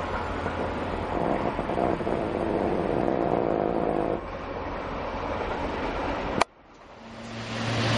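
Electric commuter train running on the rails, a steady rumble with a hum in it that eases off about four seconds in. About six and a half seconds in a sharp click cuts it off, and after a brief near-silence a steady low hum fades in.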